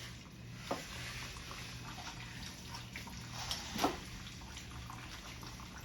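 Engine fluid trickling and dripping out of a Subaru EJ257 engine where the oil cooler has been taken off, with a few light knocks, the loudest about four seconds in.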